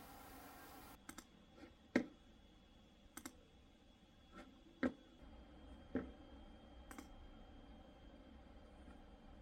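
Computer mouse being clicked: about ten separate, faint clicks at uneven intervals, the loudest about two seconds in. A steady faint hum in the first second cuts off when the clicking begins.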